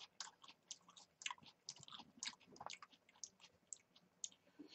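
A person chewing a mouthful of food: faint, irregular clicks of the mouth and teeth.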